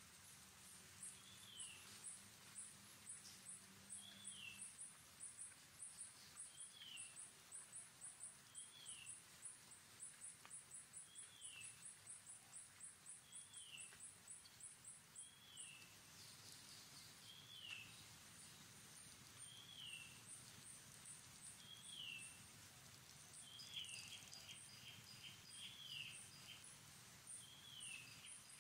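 Faint natural ambience: a bird repeats a short downward-slurred call about every second and a half over fast, very high insect chirping. The chirping thins out about halfway through.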